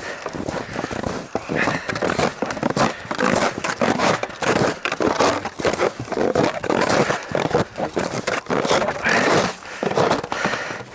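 Boots crunching through wind-packed snow crust at a steady walking pace.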